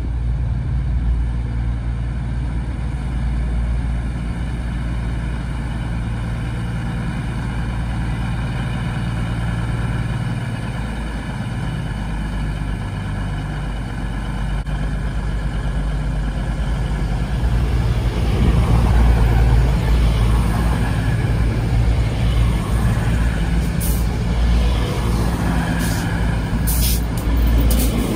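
East Midlands Railway Class 222 Meridian diesel multiple unit running into the platform, its underfloor diesel engines humming steadily as it approaches. It grows louder from about two-thirds of the way in as the cars pass close by, with braking noise and a few short high squeals near the end as it slows.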